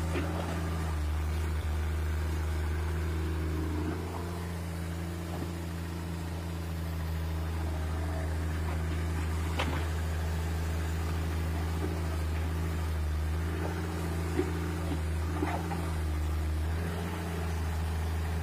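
Sumitomo tracked hydraulic excavator's diesel engine running steadily while the machine digs, the engine note easing off for a few seconds about four seconds in. A few short sharp clanks from the working machine come through about ten and fifteen seconds in.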